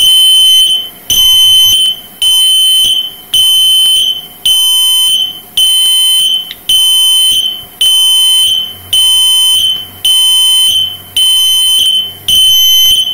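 Electronic alarm sounding a loud, high-pitched beep over and over, about one long beep a second with short gaps between.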